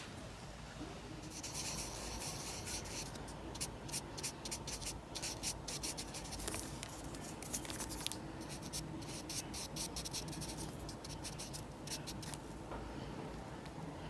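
Felt-tip marker nib rubbing across paper in quick, repeated back-and-forth strokes as an area is coloured in. The strokes start about a second in and come several a second, with brief pauses.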